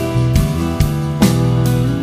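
Intro background music: guitar over a steady drum beat.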